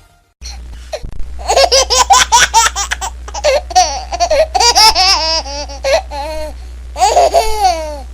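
A baby laughing in repeated fits of quick, high-pitched giggles with short breaths between them, over a steady low hum.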